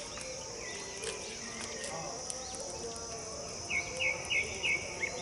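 Steady high insect chirring with scattered crackles from an open wood fire. Near the end a bird gives four short, quick, high notes, the loudest sound here.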